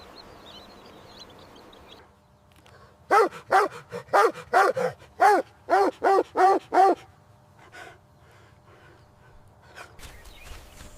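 Puppy barking in a quick series of about ten short, high yaps, each rising and falling in pitch, with a few fainter yips after.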